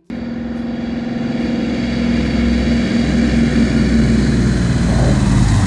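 A large propeller-driven fuel plane's engines running as it comes in to land. The sound grows steadily louder as the plane approaches.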